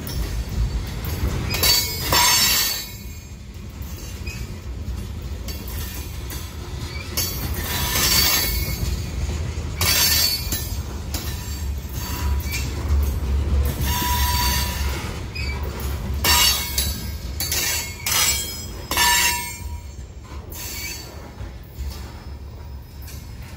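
Freight train of covered hopper cars rolling past, its wheels and trucks rumbling low, with short screeches of wheel squeal breaking in every couple of seconds. The sound eases off near the end as the last car goes by.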